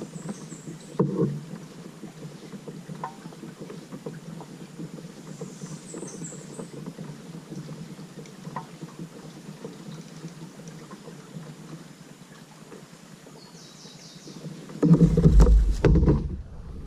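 Water sloshing and splashing around a kayak as it is paddled, with scattered small ticks and knocks. About fifteen seconds in there is a much louder, deep burst lasting over a second.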